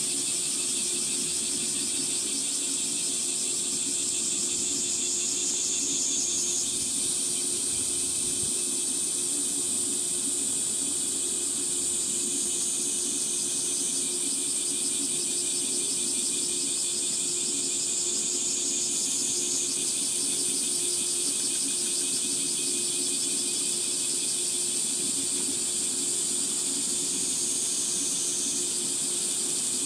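Cicadas calling in a dense, continuous chorus, with a high buzz that slides down in pitch and snaps back up about every six seconds. A faint steady low hum lies beneath it.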